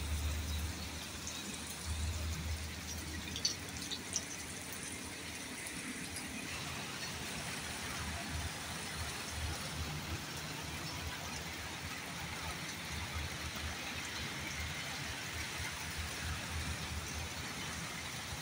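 Steady rain falling: an even hiss with a low rumble underneath and a couple of sharp ticks about four seconds in.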